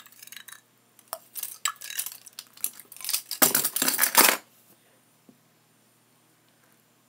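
A teaspoon clinking and scraping against a container as a slime ingredient is scooped in and stirred, in quick uneven clicks that grow busiest around four seconds in and then stop.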